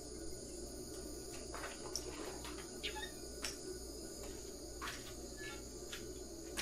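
Crickets trilling steadily in the background, with a few light clicks and knocks scattered through.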